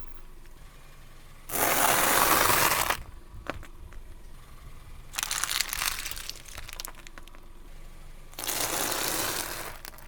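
Three bursts of crunching and crackling as objects are crushed under a car's tyres, each a second or so long. The first, about a second and a half in, is the loudest. Scattered small clicks and cracks come between the bursts.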